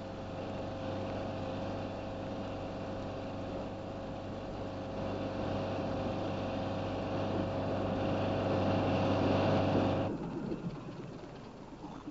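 Unimog engine running steadily, slowly getting louder as the vehicle approaches. About ten seconds in it cuts off abruptly and gives way to a quieter, rougher running noise.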